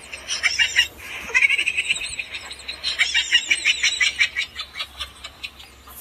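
Thin plastic bag crinkling in quick, irregular crackles, with a short break about a second in.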